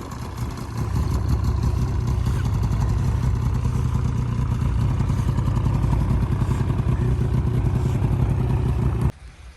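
2001 Ski-Doo MX Z 600's two-stroke twin engine running after a cold start, with fast, even pulsing. It gets louder about a second in, then cuts off abruptly near the end.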